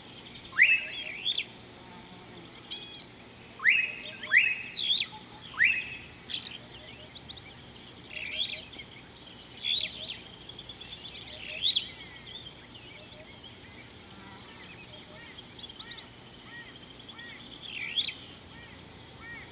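Wild birds calling: sharp rising whistled notes, several in quick succession in the first six seconds, mixed with higher chirps and trills that carry on more sparsely.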